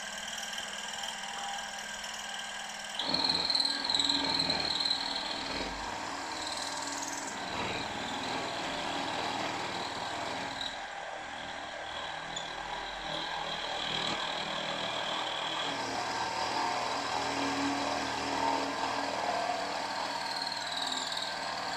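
Milling machine running with an end mill cutting, widening a slot in a metal casting held in a vise: a steady motor whine with the chatter and squeal of the cut. The cut gets louder from about three to seven seconds in.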